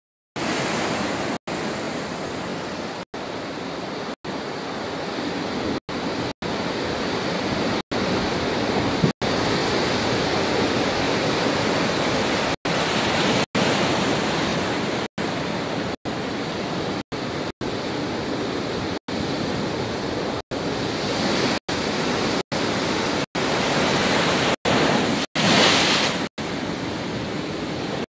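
Heavy surf from a rough sea, waves breaking against a pier, heard as a continuous rushing noise cut by many brief audio dropouts, surging louder for a moment near the end.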